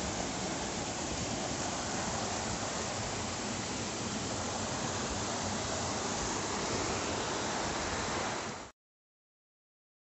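Steady rushing of a small waterfall and its stream, an even water noise that cuts off suddenly near the end.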